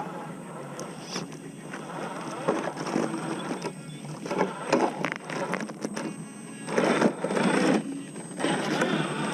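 Electric 1/10-scale RC4WD scale truck driving off-road: a small motor whining in irregular surges as the tyres crunch and clatter over dirt and rocks.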